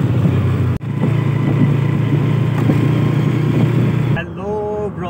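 Honda CG125's single-cylinder four-stroke engine running steadily while the motorcycle is ridden along, with a brief break about a second in. Near the end the engine sound stops and a voice begins.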